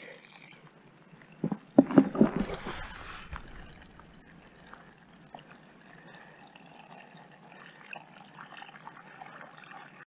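Spring water trickling faintly into a soft plastic water bottle as it is filled, with a few sharp handling knocks about two seconds in.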